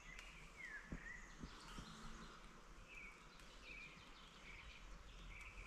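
Faint outdoor background with a small bird calling: a short falling whistle about half a second in, then a few brief chirps.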